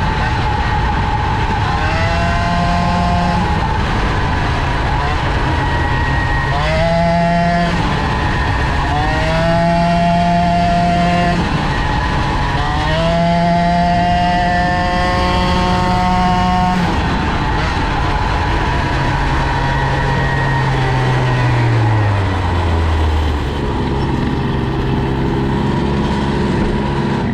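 Two-stroke moped engine fitted with a Polini kit and a Boost cylinder head, held wide open on a top-speed run, over a steady rushing noise. Its pitch climbs several times in the first half and holds high, then drops about twenty seconds in.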